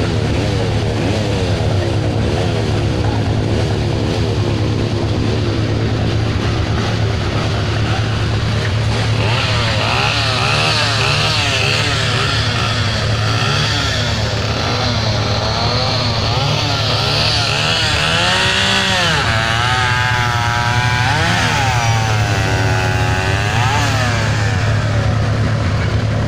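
Engines running: a steady low engine drone, with one or more small engines revving up and down in repeated swells from about ten seconds in.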